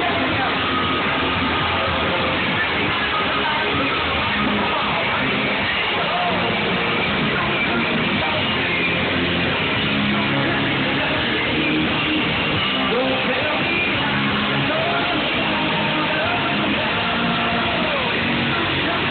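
Rock band playing live through a PA, electric guitar to the fore, steady and loud throughout.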